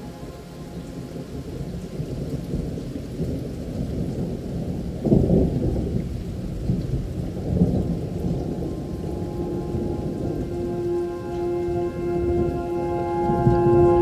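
Music track of held synth tones layered with recorded rain and thunder. A thunder rumble swells about five seconds in and again near the end.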